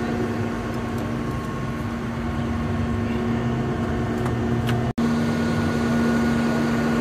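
A steady mechanical hum with a constant pitch. It drops out for an instant about five seconds in and resumes slightly changed.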